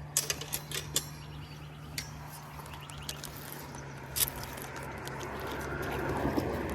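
Scattered sharp clicks and taps over a steady low hum, with the most in the first second. A car approaching grows steadily louder near the end.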